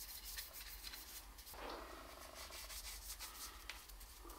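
Faint rubbing and scratching of a bristle paintbrush's strokes on sanded beech wood as linseed oil is brushed on, over a steady low hum.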